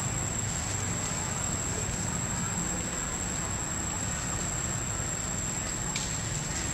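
Steady outdoor background noise: a low rumble under a thin, continuous high-pitched whine, with one short click near the end.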